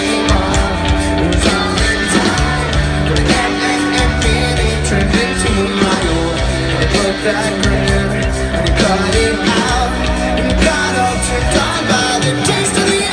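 Live rock band playing loud distorted guitars and drums, with a singer shouting and singing over them.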